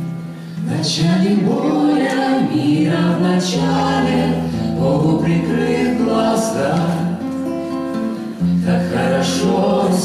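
Acoustic guitar accompanying a small vocal ensemble singing together; the voices come in about a second in, over the guitar.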